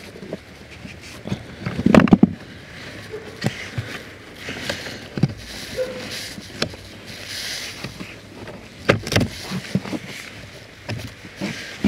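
Hands handling the plastic cabin air filter housing under the glovebox: irregular plastic clicks and knocks with rustling as the filter is worked out, the loudest knocks about two seconds in and again near nine seconds.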